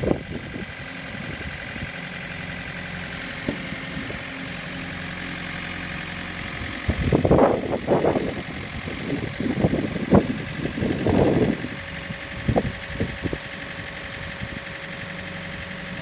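Backhoe engine running steadily, with louder bursts of the steel bucket scraping and striking the dirt about seven seconds in and again around ten to eleven seconds in.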